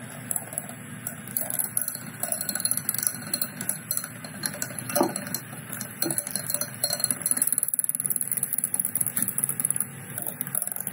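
Electric hand mixer running steadily, its beaters clinking against the glass bowl as they beat powdered sugar into a cream cheese and egg filling.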